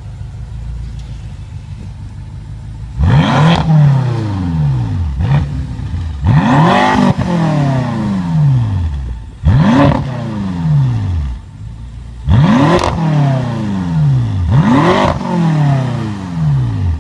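BMW F10 M5's twin-turbo 4.4-litre V8 with its exhaust resonators deleted, idling and then revved five times in neutral, each rev climbing quickly and falling back to idle.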